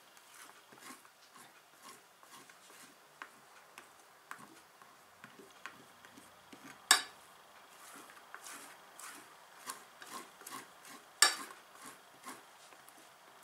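Metal teaspoon rubbing and scraping across a wet wheat tortilla on a ceramic plate as water is spread over it, with many light taps. Two sharp clinks stand out, about seven and eleven seconds in.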